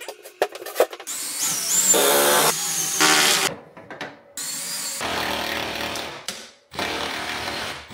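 Cordless drill driving screws into plywood in several short runs, its motor pitch wavering as it runs. A few light clicks and taps come first.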